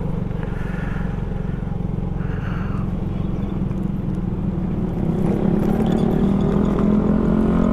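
Old Yamaha Mio scooter's single-cylinder four-stroke engine running while riding, getting louder about five seconds in.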